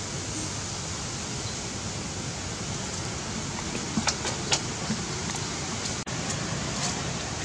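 Steady outdoor background hiss with a few short sharp clicks about four to five seconds in. The sound drops out for a moment about six seconds in.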